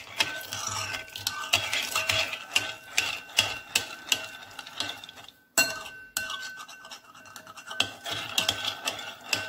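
Metal spoon stirring yeast, sugar and water in a glass bowl: fast scraping with repeated clinks of the spoon against the glass, pausing briefly about five and a half seconds in.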